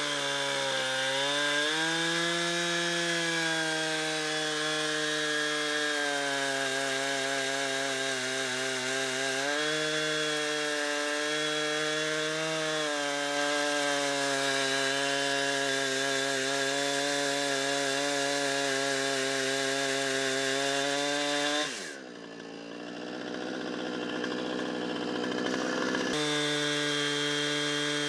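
Chainsaw in a Granberg Alaskan chainsaw mill running at full throttle as it rips a pine log lengthwise into 2-inch slabs, its pitch dipping slightly as the load changes. Near the end the engine winds down toward idle, then full-throttle cutting comes back abruptly a few seconds later.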